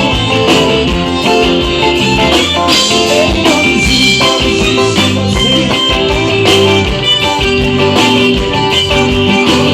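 Live band playing an instrumental passage of a gospel song, with guitar prominent over a steady beat.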